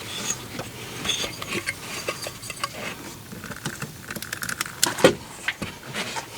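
Irregular clicks, rattles and knocks of plastic and metal parts being handled as a car amplifier's wiring connectors are worked into place, with the loudest knock about five seconds in.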